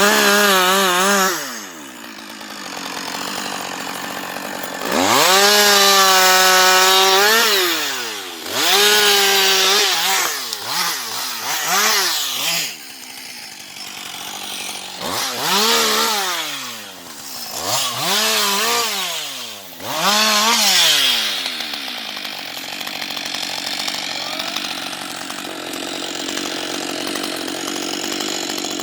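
Husqvarna 560XP two-stroke chainsaw revved up again and again, climbing to full speed and dropping back to idle between. The longest run at full speed, about two seconds, comes about five seconds in, followed by several quick blips of the throttle. The saw idles more quietly through the last several seconds.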